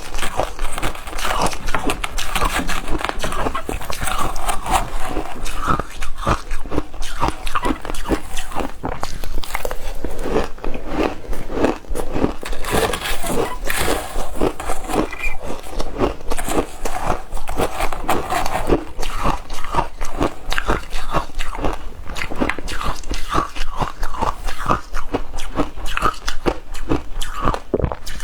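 Ice being bitten and chewed, with dense crunching and crackling bites one after another.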